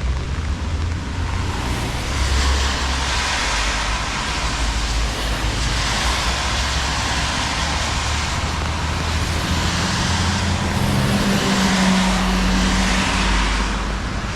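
Road traffic on a wet street in the rain: a steady hiss of rain and tyres over a low engine rumble, with a vehicle's engine hum coming in over the last few seconds.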